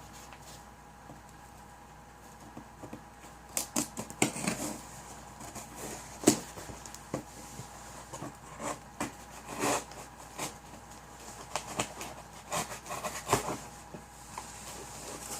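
A cardboard shipping box being handled and opened: irregular rustles and scrapes with scattered sharp clicks and knocks.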